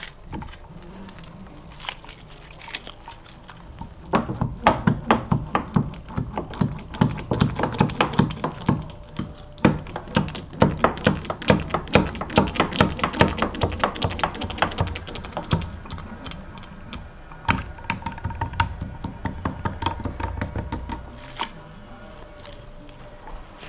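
Rapid tapping and thunking of a resin brush stippling glass-fibre mat into the wet laminate of a timber rill, several strokes a second, the knocks carrying through the wooden box. The tapping starts about four seconds in and runs for over ten seconds, stops briefly, then comes back for a few seconds more.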